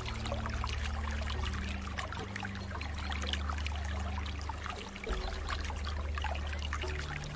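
Water flowing and trickling, a steady splashing rush. Under it, low held music notes shift to a new pitch every second or two.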